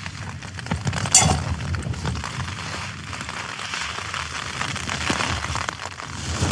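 Strong wind gusting against a tent, the fabric flapping and crackling over a low rumble, with one sharp snap about a second in.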